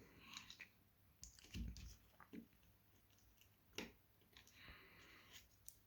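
Faint clicks and light handling noises of the small plastic parts of a StarLine A94 car-alarm key fob being fitted back together, with a sharper click about four seconds in.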